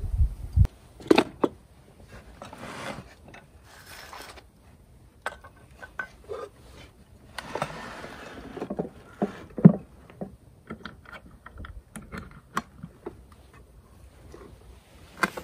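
A wooden camp kitchen box packed with stainless cookware being handled and closed: wooden panels knocking and sliding, scattered clicks and rattles, and one sharp wooden knock a little past the middle.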